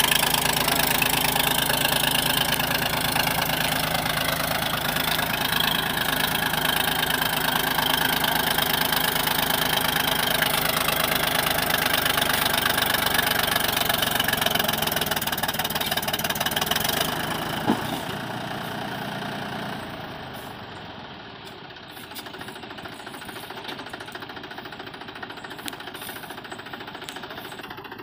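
Mahindra B275 DI tractor's three-cylinder diesel engine working hard under heavy load, hauling a sand-loaded trolley through deep sand. Around two-thirds of the way through there is a sharp click and the engine eases off, running noticeably quieter.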